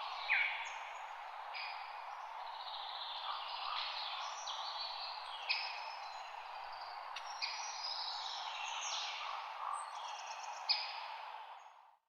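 Forest ambience: a steady rush of wind in the trees with many birds calling over it, in quick chirps and notes that slide down in pitch. It all fades out just before the end.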